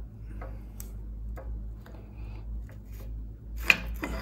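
Small metal clicks and ticks of an adjustable wrench working on a bicycle's bottom-bracket locknut, then one loud sharp metal click near the end as the nut breaks loose.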